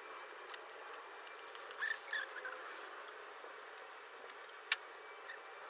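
Faint steady background hiss with a few short chirps about two seconds in and a single sharp click near the end.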